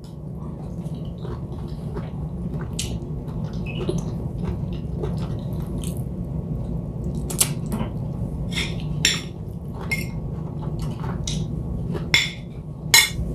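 A person eating with spoon and hand: chewing and wet mouth sounds with scattered short clicks of a spoon against a plate, over a steady low hum.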